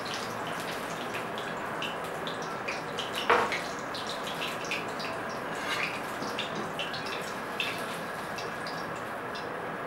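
Paneer pakoras deep-frying in hot oil in a kadhai: a steady sizzle with scattered crackles as the cooked pakoras are lifted out. A metal spoon clinks against the pan once, about three seconds in.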